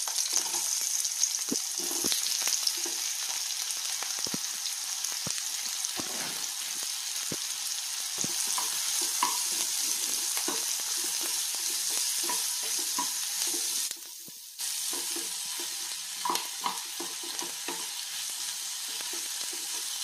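Sliced onions sizzling as they fry in oil in a nonstick wok, with a wooden spatula stirring them and knocking and scraping against the pan now and then. The sizzle drops away for a moment about two thirds of the way through.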